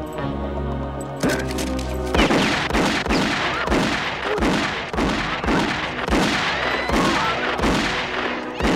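Film score playing, then from about two seconds in a rapid run of revolver shots, about two or three a second, fired over the music.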